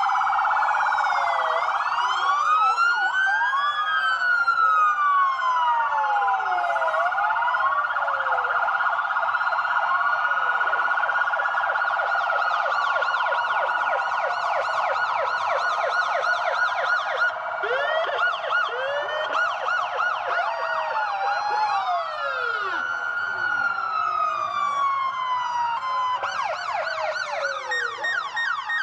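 Several police sirens sounding at once. Slow wails rise and fall, overlapping with faster yelping sweeps, and a quicker warble comes in near the end.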